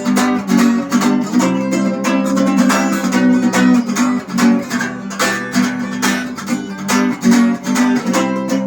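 Instrumental passage of a rock song, led by strummed guitar in a steady rhythm, with no singing.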